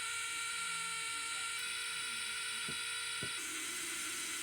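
High-pitched electronic buzz from a Chaney C4722 10-note sound synthesizer kit, steady, its tone changing about one and a half seconds in and again past three seconds, with two faint clicks shortly before the second change.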